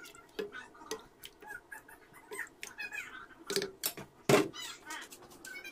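Wooden spatula stirring in a stainless steel pot of pork and broth, clicking and knocking against the pot. The loudest knock comes a little past four seconds in.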